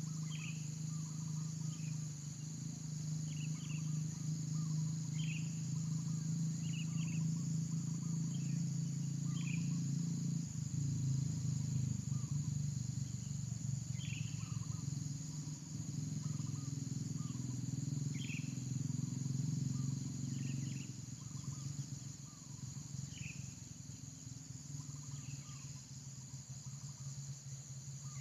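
Steady high insect buzzing with short chirping calls every second or two, over a louder steady low hum that weakens about ten seconds in and drops again about twenty seconds in.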